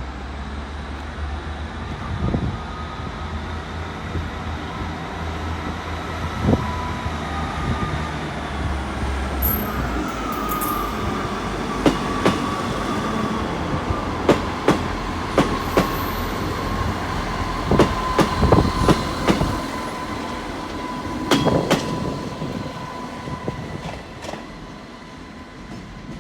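A train pulling out of the station: a low engine rumble for the first ten seconds or so, then the wheels clicking over rail joints with a thin wheel squeal as it moves off.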